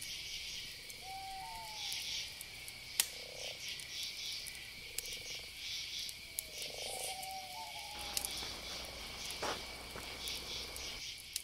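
Night chorus of crickets and frogs: a steady high insect trill with pulsing chirps above it, and a few short frog calls about a second in and again around seven seconds.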